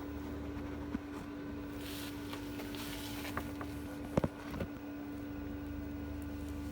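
Steady electrical hum, with a few light knocks and clicks of objects being handled, the loudest a couple of sharp knocks about four seconds in.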